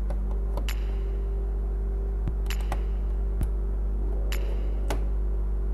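Small sharp clicks and taps of plastic and metal parts being handled as a portable DVD player's case is opened and its circuit board lifted out, heard over a steady low hum.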